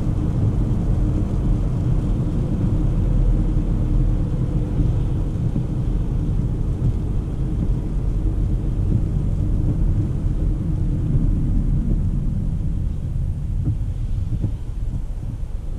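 Interior road noise of a 2024 Volvo XC40 B3 driving on a wet road in the rain: a steady low rumble of engine and tyres heard inside the cabin, easing slightly near the end as the car slows.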